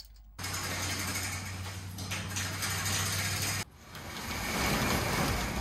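A steady noisy hum for the first few seconds. Then a metal roll-up storage-unit door is pushed up by hand, rattling and rumbling louder as it rolls open.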